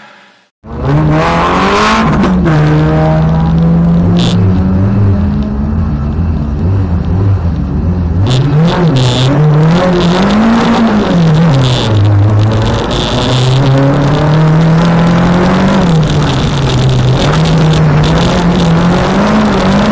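Renault Clio 1.8 16v four-cylinder engine heard from inside the cabin. It cuts in abruptly about a second in, runs at fairly steady revs for several seconds, then revs up and down repeatedly as the car pulls away and accelerates through the gears.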